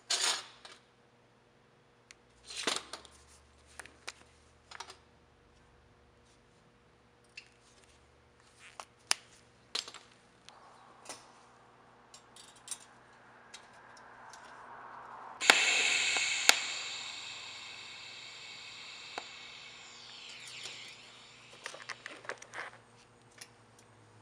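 Steel spoons and butter knives clinking and tapping as they are handled and set in place. About fifteen seconds in, a TIG welding arc strikes with a sudden loud buzz that fades away over the next few seconds, followed by a few more metal clinks.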